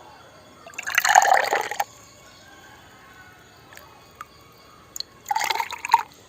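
Liquid pouring or splashing in two short bursts, each about a second long, a few seconds apart, with faint drips between them.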